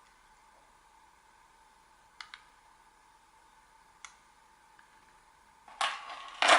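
Small sharp clicks, two in quick succession and then a single one, as of something small and plastic being handled, followed near the end by a louder rustling scrape lasting about a second.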